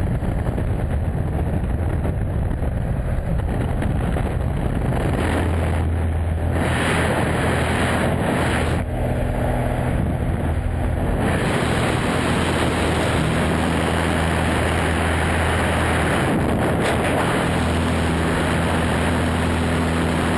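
Small jump plane's engine and propeller droning steadily in flight, with wind rushing in through the open door. The wind rush grows louder for several seconds in the middle.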